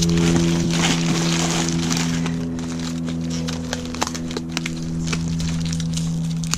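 Background music with sustained chords, over the crinkling and crunching of honeycomb kraft-paper packaging being pulled and torn off a board.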